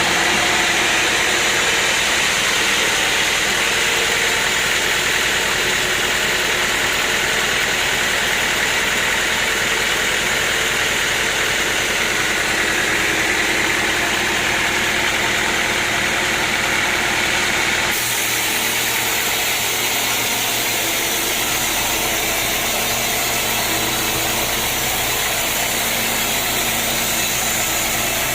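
Sawmill machinery running steadily with a continuous engine-like drone. The sound changes abruptly about 18 seconds in.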